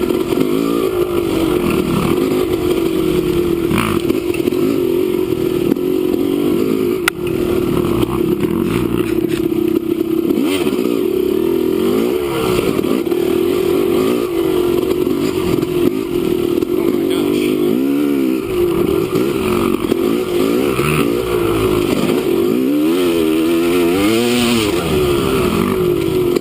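Dirt bike engine being ridden hard, its pitch rising and falling again and again with throttle and gear changes, with no let-up.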